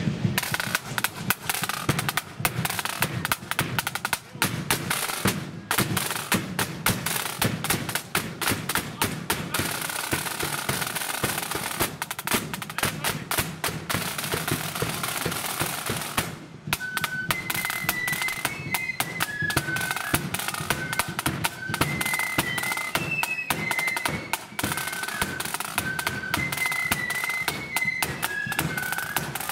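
Marching flute band: snare drums rolling and a bass drum beating, then after a brief pause a little past halfway, the flutes come in with a high melody over the drums.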